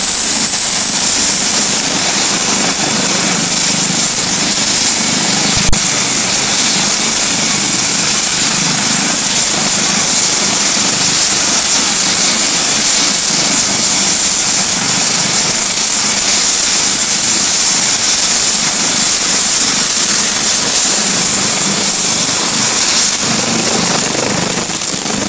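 Ambulance helicopter running on the ground with its rotor turning: a loud, steady turbine whine over rotor noise. The whine steps up slightly in pitch about a second in and again near the end, with one sharp click about six seconds in.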